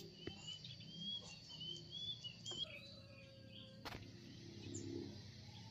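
Small birds chirping faintly in the background, a quick run of short high chirps in the first half, with a brief steady tone and a single click around the middle.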